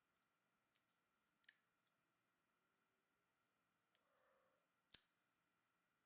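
Small sharp clicks of a Spyderco Lil Native folding knife and its parts being handled, about five separate clicks with the loudest about five seconds in, and a faint brief scuff just before it.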